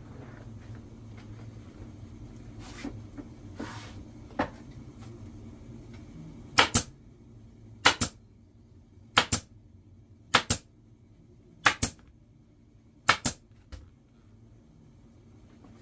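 Pneumatic upholstery staple gun firing six times, about one shot every 1.3 seconds, each a sharp double crack as a staple is driven through the vinyl seat cover into the seat base. A few fainter clicks and handling knocks come before the first shot.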